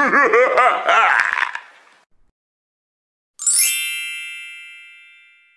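Chime sound effect marking a title card. About three and a half seconds in, a quick rising shimmer turns into a bright ding that rings and fades away over about two seconds.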